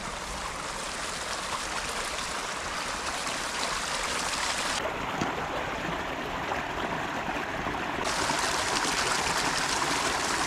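A small stream trickling steadily over stones, with water bottles being dipped into it to fill.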